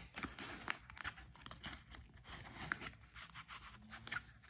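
Packaging of a small boxed powder compact crinkling and tearing as it is opened with one hand, with faint rustles and small scattered clicks.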